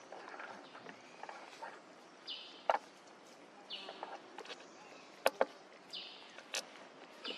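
Outdoor ambience with a short high-pitched animal call repeating four times, roughly every second and a half. Several sharp clicks cut through it: the loudest about two and three-quarter seconds in, and a close pair a little after five seconds.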